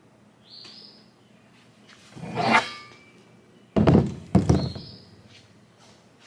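Heavy tubular steel UTV A-arms being handled on a workbench: a brief scrape with a slight metallic ring, then two loud thunks about half a second apart as the arms are knocked or set down.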